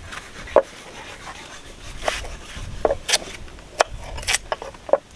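Chopping with a blade on wood: irregular sharp knocks, about eight of them, some with a short ring.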